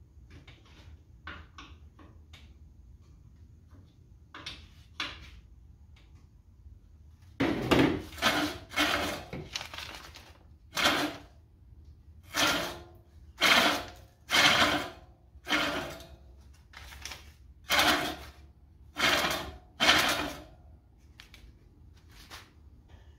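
Old Silent Scott's Deluxe push reel mower, its reel turned by hand in short strokes so the blades scrape along the bed knife: about ten loud scraping strokes after a few faint clicks. This is the scrape left after backlapping and a bed-knife adjustment that still leave the cut not great.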